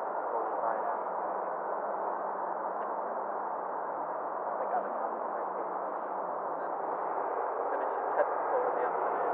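Steady static hiss from an air-band radio receiver: the channel is open with no one transmitting.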